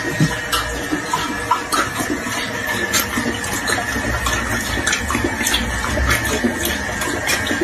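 Running water with scattered small splashes and clicks.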